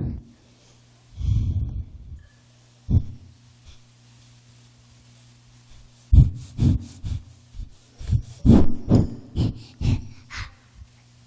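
Microphone handling noise: muffled thumps and rustles, a few in the first three seconds and then a quick run of louder ones from about six seconds in, over a steady electrical hum.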